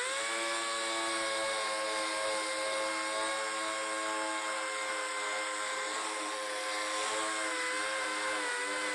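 Handheld rotary disc sander running at a steady high pitch while sanding the black film of converted rust off a steel seat pan after electrolysis; the pitch wavers slightly near the end as the disc is worked against the metal.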